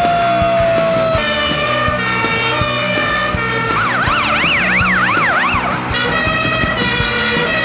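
Electronic emergency-vehicle siren over background music: a slowly falling wail fades out about a second in, then a fast yelp sweeping up and down about twice a second sounds for about two seconds around the middle.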